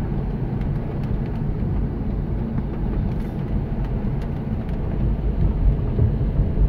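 Steady road noise inside a Toyota Prius driving at about 30 mph on a rain-soaked road: tyres on wet pavement with a low rumble, and faint scattered ticks.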